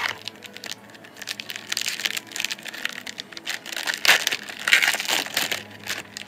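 Foil wrapper of a trading card pack being crinkled and crumpled in the hands: a run of irregular crackles, loudest about four to five seconds in.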